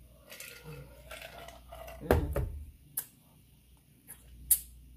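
A person drinking from a glass mug and swallowing, with a dull knock about two seconds in and a few short sharp clicks after it.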